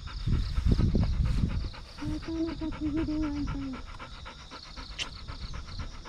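Golden retriever panting hard and fast in the heat, an even, rapid rhythm of breaths. A low rumbling noise covers the first second and a half.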